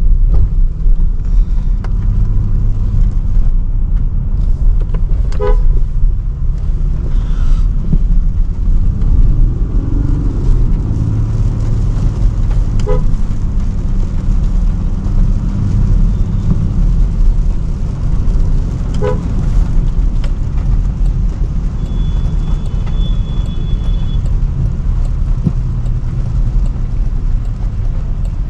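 Steady low rumble of a Range Rover Sport driving through city traffic, heard from inside the cabin, with vehicle horns tooting a few times and one higher, longer beep lasting about two seconds near the end.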